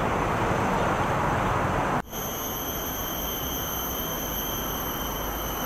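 Steady street and traffic noise, cut off sharply about two seconds in. It gives way to a quieter forest ambience with a steady, high-pitched insect drone.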